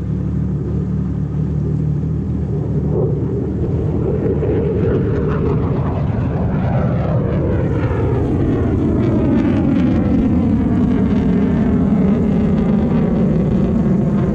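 Jet ski engine running steadily, then building up and growing a little louder partway through, with a sweeping, whooshing quality to its tone.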